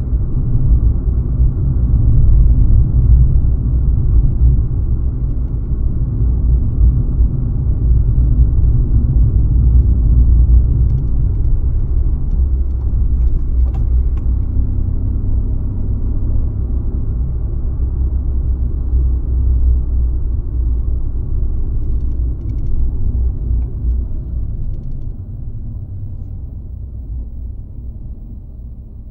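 Car driving on the road, heard from inside the cabin: a steady low rumble of engine and tyres that fades off over the last few seconds as the car slows.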